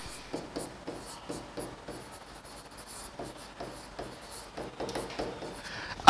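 Pen writing on an interactive smart-board screen: a string of short, light taps and scratches as letters are drawn.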